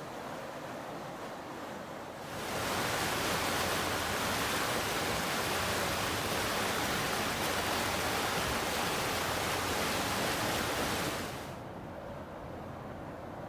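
Steady rushing noise of water and wind around a boat under way, with no motor audible. It turns much louder and hissier about two seconds in and drops back abruptly near eleven seconds.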